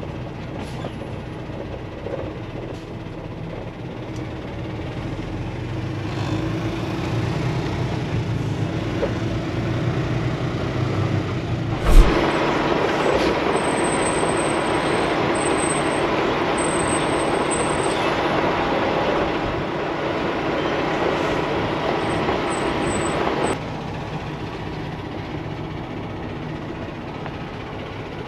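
Semi truck driving, heard from inside the cab: steady engine and road noise. About twelve seconds in there is a sharp knock, then a louder, even rushing noise that cuts off suddenly about eleven seconds later.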